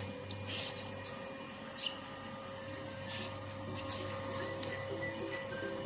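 Handheld fiber laser cleaning machine running with a steady low hum, with a few brief hissing bursts as the laser works.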